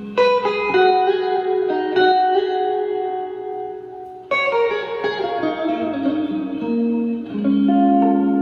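Electric guitar played through a Fender Blues Junior tube amp with its spring reverb turned up: picked chords and single notes ringing out, with fresh chord attacks at the start and about four seconds in.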